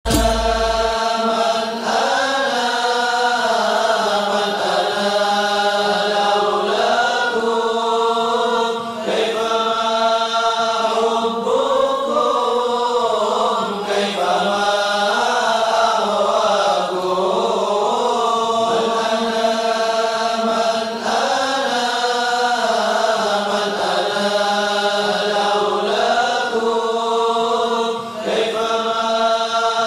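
Devotional Islamic chant (nasheed) sung a cappella: a melodic vocal line moving in phrases over a steady held vocal drone, with a fresh phrase beginning about 9, 14 and 28 seconds in.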